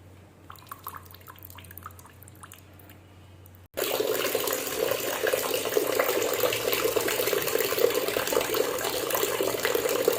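A few faint small clicks, then, starting abruptly about four seconds in, water pouring steadily and loudly into a bucket.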